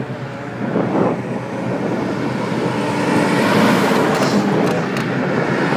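Wind rushing over a phone's microphone while riding a bicycle: a steady loud rush that swells a little about halfway through.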